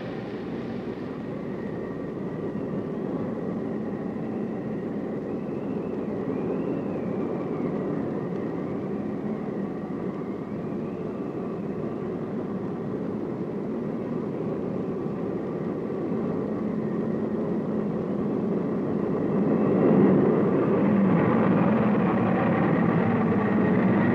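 Rushing tornado wind, a steady noisy rumble that grows slowly louder and surges about 20 seconds in, with a faint wavering whistle over it in the first half.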